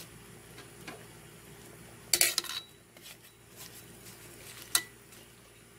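A metal utensil clinking against a cooking pot while vegetables are stirred in: a quick cluster of knocks about two seconds in and a single sharp, briefly ringing clink near the end.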